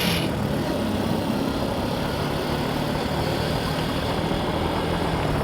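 Vehicle engine running steadily, with an even rush of noise over it.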